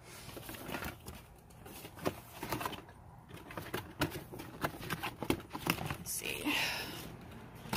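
Cardboard box flaps and plastic packaging rustling and crinkling as a spray-mop box and its parts are handled, with irregular light clicks and knocks. There is a short louder crinkle near the end.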